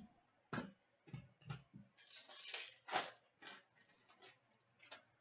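Trading cards being handled on a table: faint, irregular soft clicks of card stock, with a short sliding swish about two seconds in.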